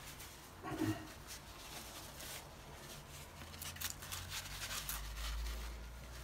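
Paper napkin rustling and crinkling in a hand as it is wrapped around a piece of fried börek, in a run of short crackles. A brief low sound about a second in, and a low rumble near the end.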